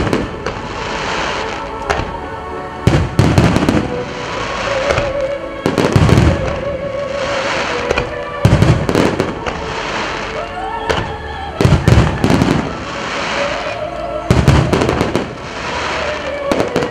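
Fireworks display: wide starmine salvos, aerial shells bursting in loud booms followed by crackling, about every three seconds. The show's accompanying music plays steadily underneath.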